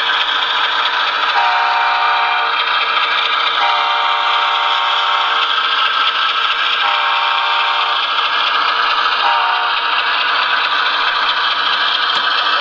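Sound system of an Athearn Genesis HO-scale GE Evolution Series diesel model: the diesel engine runs steadily while the horn sounds four times, three longer blasts and a short one about nine seconds in, as the model train passes a grade crossing.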